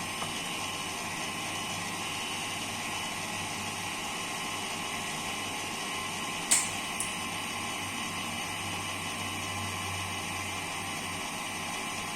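Online UPS's cooling fan running steadily with a hum. A sharp click about six and a half seconds in, and a smaller one half a second later.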